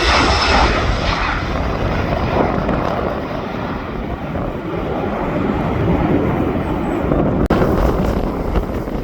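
Aircraft engine noise fading away as the plane moves off, over wind buffeting the phone microphone. A single sharp click comes about seven and a half seconds in.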